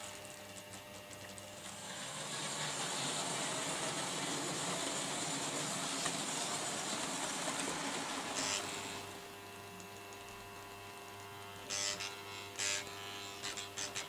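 Vintage Märklin model trains running on the layout: a small electric motor whirring with wheels rattling on the track, louder for several seconds in the first half. After that a quieter, steadier hum, with a few sharp clicks near the end.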